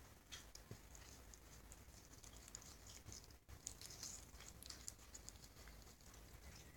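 A cat chewing lettuce: faint, irregular crisp crunching.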